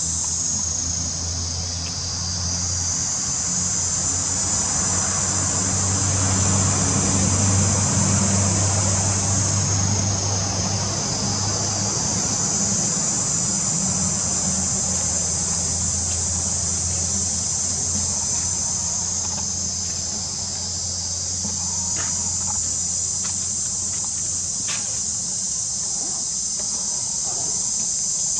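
Steady high-pitched chorus of insects buzzing continuously, with a low steady hum underneath and a few faint ticks near the end.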